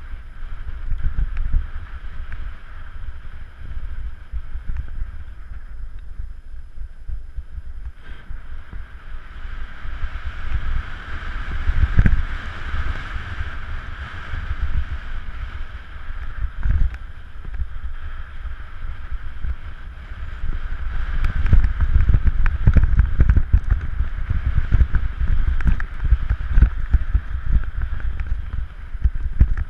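Wind buffeting the microphone on a mountain bike ride, with the bike rattling and knocking over rough trail throughout.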